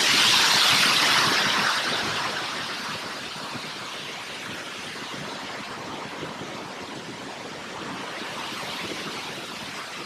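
Waterfall water rushing steadily, loudest for the first couple of seconds, then easing to a lower, even rush.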